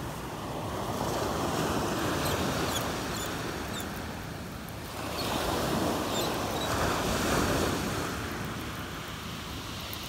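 Small waves breaking and washing up a gravel-and-sand beach. The surf swells and fades twice.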